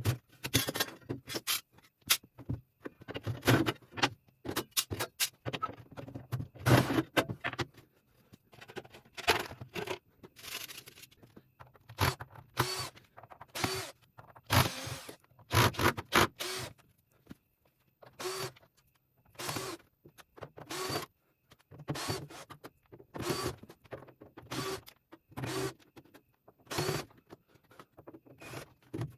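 Repeated hammer blows on steel. They are uneven at first, then settle into a steady beat of about one strike every second, each with a short metallic ring.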